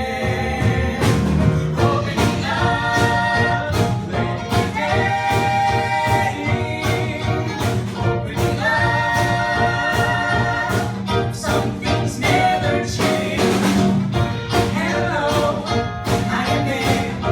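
Musical-theatre song: voices singing over instrumental accompaniment with a steady beat, including a few long held notes.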